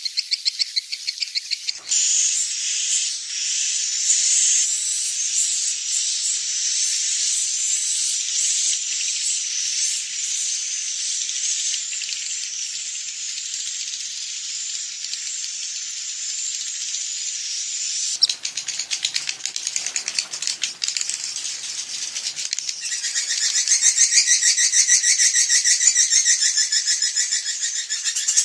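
Swiftlets twittering in a dense, high-pitched chorus of rapid chirps: an evening roosting-call recording of the kind played to lure swiftlets into a nesting house. The mix changes abruptly about two seconds in, again around eighteen seconds, and once more a few seconds later, when the chirping turns more pulsing.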